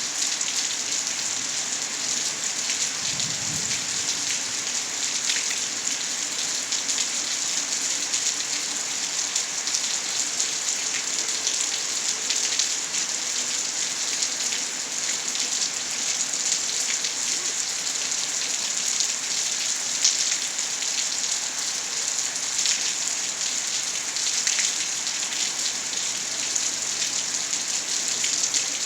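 Steady heavy rain falling on hard surfaces, a constant hiss with many individual drops ticking through it. A brief low rumble comes about three seconds in.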